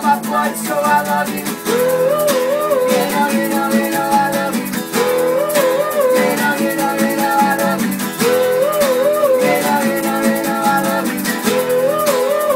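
Live acoustic band music: strummed acoustic guitars under a short wordless melody that repeats about every three and a half seconds.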